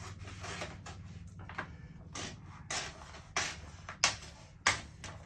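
Paper backing of a vinyl decal being peeled and cut away: about six sharp, short crackling sounds roughly half a second apart, the loudest near the end, over a low steady hum.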